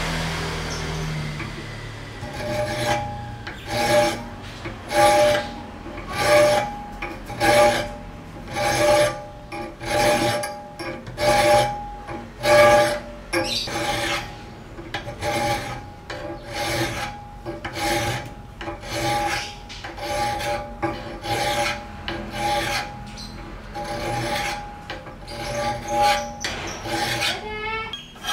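Flat hand file rasping across the steel of a knife blade clamped in a vise-held filing jig, cutting the bevel in regular back-and-forth strokes. The strokes come about once a second and quicken later on, and each one has a ringing tone from the steel.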